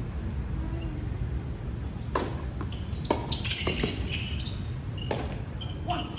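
Tennis ball being struck by rackets in a doubles rally: several sharp hits, the first about two seconds in and the rest about a second or so apart, over a steady low rumble.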